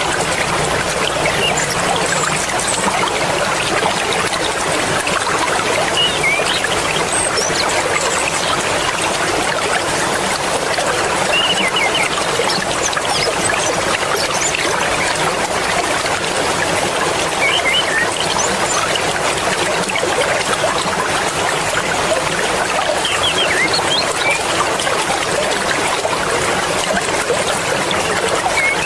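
Mountain river flowing swiftly: a steady rush of water, with a few short, high chirps scattered over it.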